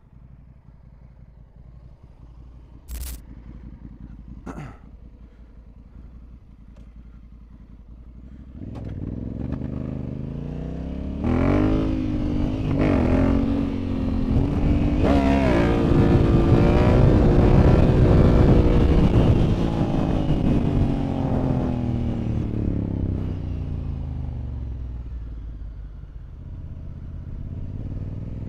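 Honda Africa Twin 1100's parallel-twin engine through its aftermarket full exhaust: a low rumble with a couple of short knocks early on, then from about nine seconds in it revs up and accelerates hard, its pitch rising in steps as it goes through the gears, before easing off and picking up again near the end.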